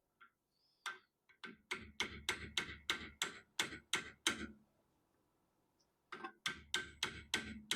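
A hand tool working on the mill head's metal parts: a quick run of sharp metallic clicks or taps, about three a second for some three seconds, then a second run starting near the end.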